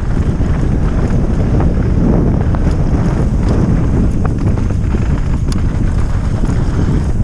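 Wind buffeting the microphone of a helmet- or bike-mounted GoPro during a downhill mountain-bike run, a steady rush, with scattered clicks and knocks from the bike rattling over the trail.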